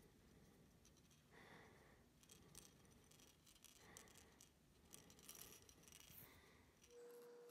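Near silence: faint room tone with a few faint ticks, and a faint steady hum setting in near the end.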